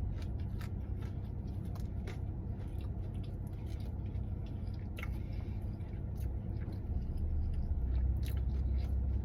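A person chewing a mouthful of fried chicken tender and syrup-dipped waffle: irregular small wet clicks and smacks.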